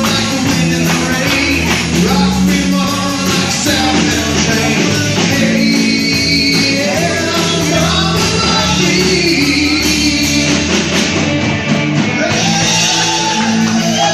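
Country-rock song playing at a steady loud level, with guitar and a singing voice.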